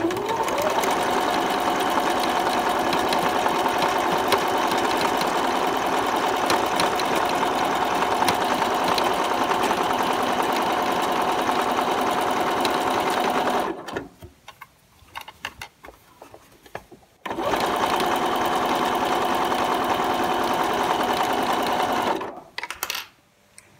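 Domestic electric sewing machine stitching a linen seam on its reinforced triple straight stitch, which sews each stitch three times. It runs steadily for about fourteen seconds, stops for about three seconds, then runs again for about five seconds and stops.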